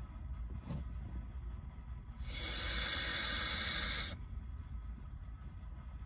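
A draw on a sub-ohm vape: the Freemax Maxus Max Pro firing a Cloud Beast King tank, giving a steady hiss of air pulled through the coil that lasts about two seconds and stops suddenly.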